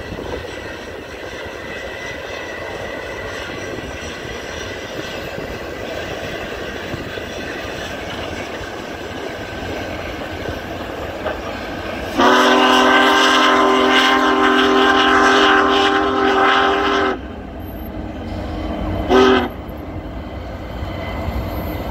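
Union Pacific Big Boy 4014 steam locomotive and its train rumbling past, then a long multi-tone chime whistle blast of about five seconds, and a short blast about two seconds later.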